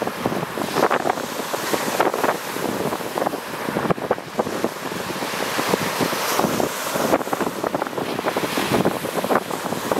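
Lake Superior waves breaking steadily on a rocky, pebbly shore, with wind buffeting the microphone.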